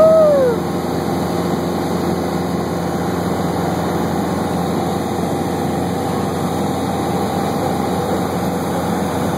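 Steady drone of an aircraft's engine heard from inside the cabin, with a brief tone that rises and then falls right at the start.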